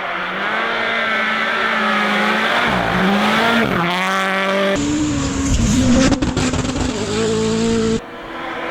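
Rally car engines at full throttle, pitch climbing and dipping as the driver lifts and gets back on the power through gear changes. The sound cuts abruptly to another car about two-thirds through, a closer, rougher pass with a few sharp cracks, then cuts again near the end.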